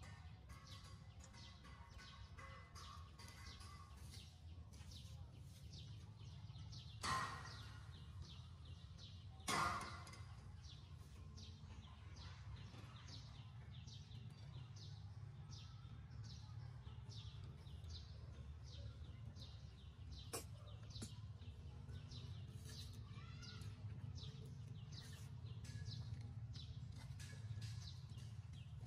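Outdoor ambience: a steady low rumble under many quick, high chirps, broken by two short, loud calls, one about seven seconds in and one about two and a half seconds later.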